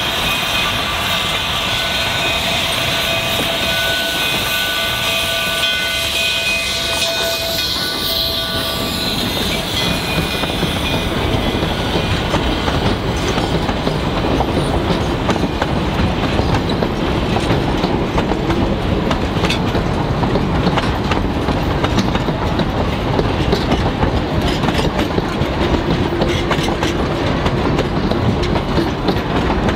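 Steam whistle of Durango & Silverton K-28 narrow-gauge locomotive 473 sounding a chord in several blasts for about the first eight seconds as the train pulls away. Then the passenger coaches roll past with a steady clickety-clack of wheels over the rail joints, growing a little louder near the end.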